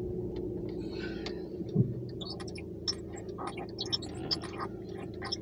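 Crackling, bubbling interference from the XTRONS IN99MTVPL head unit's DAB radio, heard over a steady low hum: irregular clicks and blips instead of a clean station. It is a horrible interference that shows the DAB tuner is still receiving but not decoding cleanly. A single knock comes just under two seconds in.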